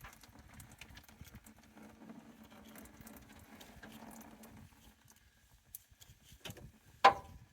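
Old hydraulic oil trickling out past a part-opened sump plate into an oil drum, with scattered small drips and ticks. The flow sound fades about two-thirds of the way through, and a single sharp knock comes near the end.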